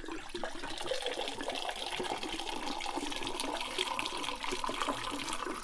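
Water gushing fast from a petrol-pump nozzle fitted to an upturned bottle into a metal shaker tin, a steady splashing rush.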